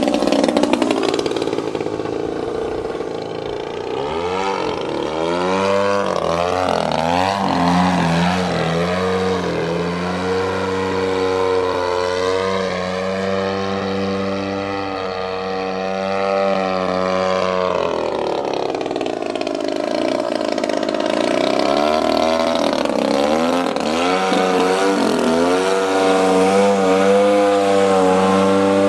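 Radio-controlled aerobatic model airplane's motor and propeller running continuously, its pitch repeatedly rising and falling in long sweeps as the plane throttles up and down and passes overhead.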